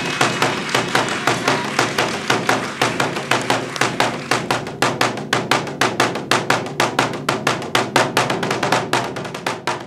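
Taiko drum struck in a quick, steady rhythm of sharp beats: the closing 'oidashi' drumming that sends the audience out at the end of a kodan or rakugo show. It fades out near the end.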